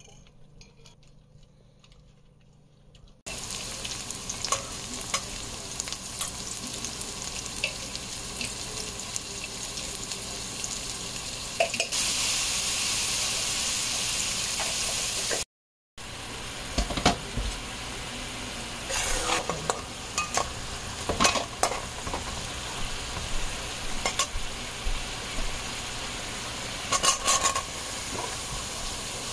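Onions, dried red chillies and spices sizzling in oil in an aluminium pan, stirred with a metal spatula that scrapes and clicks against the pan. The sizzle starts about three seconds in, grows louder for a few seconds in the middle, cuts out briefly, then goes on with more scraping as green tomato pieces are stirred.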